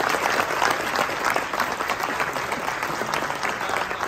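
Audience of seated dinner guests applauding, a dense run of hand claps that slowly fades.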